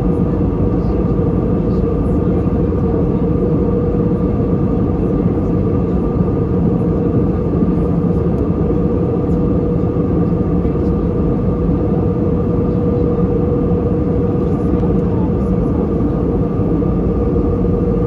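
Steady cabin noise of an Airbus A321 in flight, heard from a window seat beside the wing: a dense, even rush of airflow and engine noise with a constant hum running through it.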